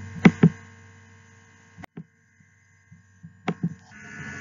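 Two pairs of sharp clicks, one near the start and another about three and a half seconds in, with fainter single clicks around two seconds. Under them a low electrical mains hum drops out in the middle and comes back louder near the end.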